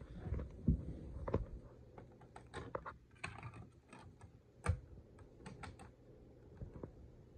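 A run of sharp plastic clicks and taps from handling a Sylvania portable DVD player while a DVD is pressed onto its spindle and the lid is shut, with the loudest click a little past halfway.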